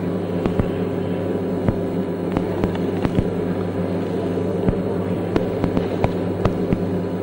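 The background of an old speech recording in a pause: a steady electrical hum with hiss, broken by scattered faint clicks.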